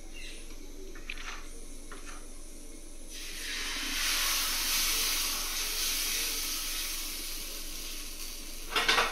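Madua (finger millet) and maize batter sizzling as it is poured onto a hot pan: a hiss that starts about three seconds in, swells, then fades. A few metal clatters of kitchen utensils near the end.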